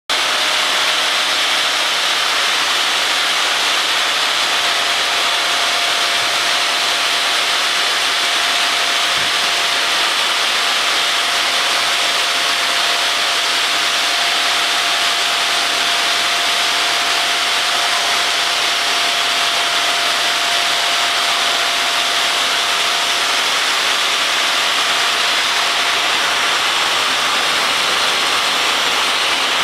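Water-cooled diamond saw blade of an SYQ-600 manual stone cutting machine running steadily as it cuts through a stone slab. A faint steady whine runs under the cutting noise for much of the time and fades out a little over twenty seconds in.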